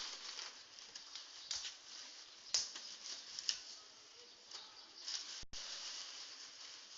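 Water lapping and splashing, with a few sharper splashes; the sound cuts out for an instant near the end.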